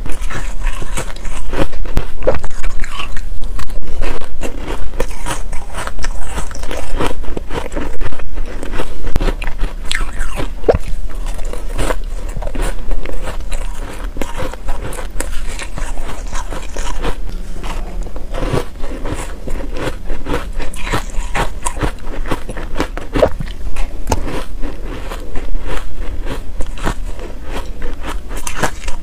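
Matcha-powder-coated ice being bitten and chewed right at the microphone: a dense run of sharp cracks and crunches. It is loudest in the first ten seconds or so, then continues a little softer.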